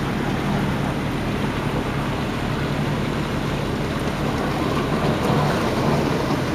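A car driving through deep flood water, heard from inside the cabin: a steady engine hum under a continuous rush and splash of water against the car's body.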